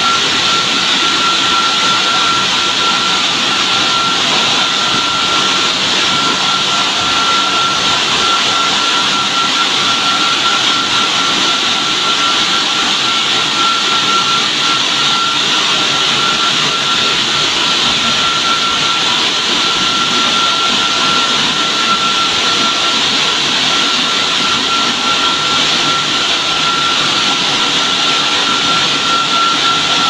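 Touchless car wash gantry running over a car: a steady, loud rushing hiss of its jets with a steady high-pitched motor whine.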